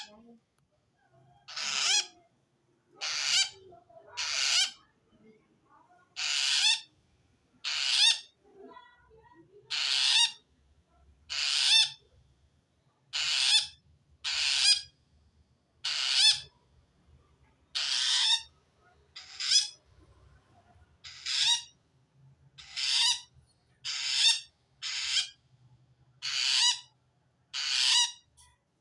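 Long-tailed shrike (cendet) giving a harsh, rasping call about eighteen times, each call about half a second long, every one to two seconds. This is the call that, according to the uploader, a cendet gives when it feels threatened by another cendet.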